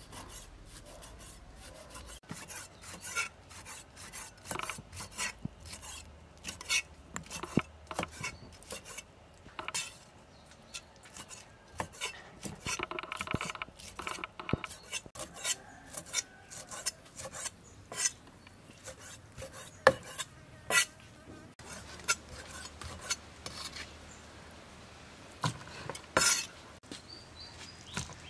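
A cleaver chopping raw pork intestine on a thick wooden chopping block: irregular sharp knocks of the blade hitting the board, a few a second, with the slicing rub of the knife through the meat.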